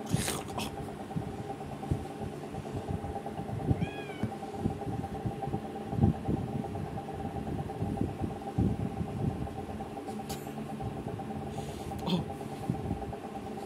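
Kitten giving one short, high meow about four seconds in, over a steady hum and soft low thumps and taps.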